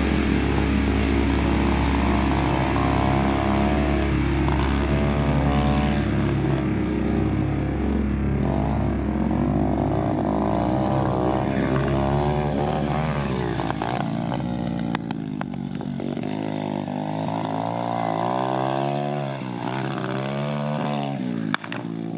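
Piranha 125 single-cylinder four-stroke pit bike engine on a trike, revving up and down as it is ridden around a dirt track, with repeated rises and falls in pitch. The rider judges that its carburettor definitely needs to be jetted.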